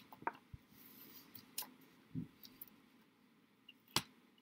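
Faint scattered clicks and taps of fingers working a thick flour-salt-water paste on paper and in a mixing bowl, with one sharper click about four seconds in as the fingers reach into the bowl.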